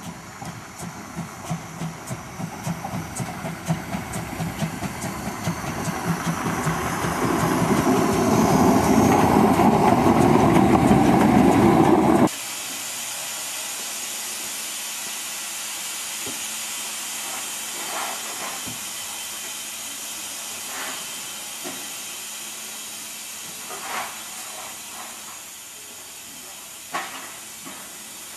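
Narrow-gauge steam locomotive 99 773 working toward the listener, its rhythmic exhaust chuffs growing louder and building into a loud continuous hiss of steam. After an abrupt cut about twelve seconds in, a steadier, quieter hiss of steam escapes from the standing locomotive, with a few faint clicks.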